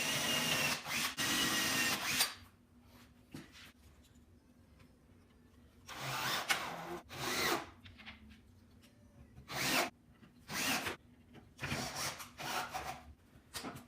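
Old cordless drill driving screws into plywood. The motor whines in a run of about two seconds, followed by several shorter bursts with handling noise between them.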